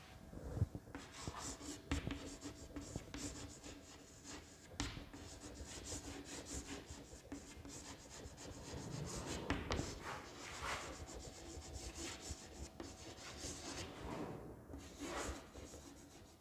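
Chalk writing on a chalkboard: a run of scratching strokes with short taps as words are written out, with small pauses between them.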